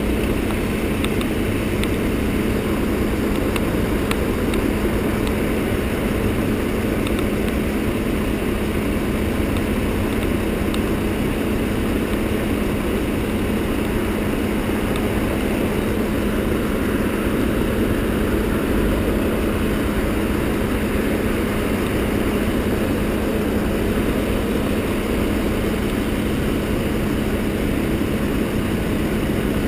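Yamaha XTZ125's single-cylinder four-stroke engine running steadily during a ride, with no clear revving or gear changes.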